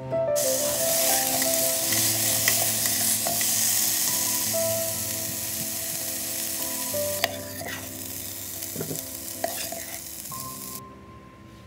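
Potato, carrot and onion chunks sizzling as they sauté in a Philips multicooker's nonstick inner pot on its Sauté/Sear setting, with a few clicks and scrapes of a plastic spoon stirring them. The sizzle cuts off suddenly near the end.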